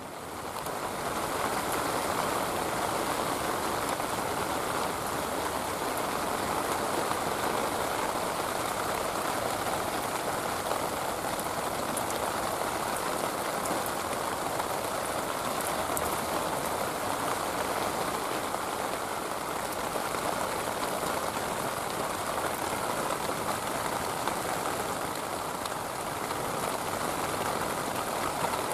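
Heavy downpour falling steadily, a dense even patter of rain that fades in over the first second or so.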